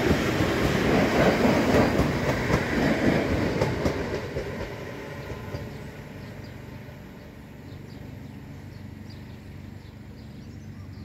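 c2c Class 357 electric multiple unit passing close at low speed. It is loud for the first few seconds, then fades away over a couple of seconds as it runs off down the line.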